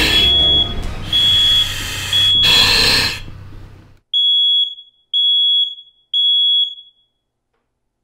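Smoke alarm sounding its alarm: a loud, high single-tone beep about half a second long, repeating about once a second. The first three beeps sit over a low rumble and two hissing bursts; after about four seconds the last three ring out alone with a short echo, then the beeping stops.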